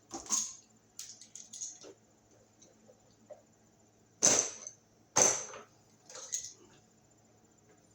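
Wire strippers cutting and pulling the insulation off the ends of the white and black circuit wires: a series of sharp snaps and clicks, the two loudest about four and five seconds in.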